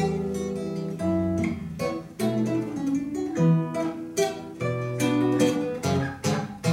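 Acoustic guitar played solo: picked notes ringing under chords struck about once a second, an instrumental passage between verses of a song.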